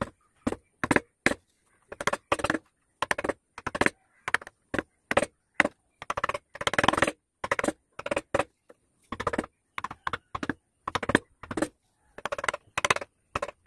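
Steel carving chisel cutting into wood by hand: a quick, irregular run of short cuts and chip snaps, with one longer paring cut about seven seconds in.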